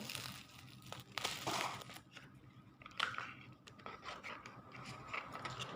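Packaging being handled and opened: short bursts of crinkling and rustling, with a few small clicks.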